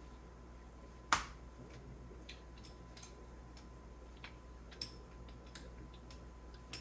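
A sharp click about a second in, then scattered light ticks and taps: a small wooden rolling pin being handled and rolled over pie-crust dough on a silicone pastry mat.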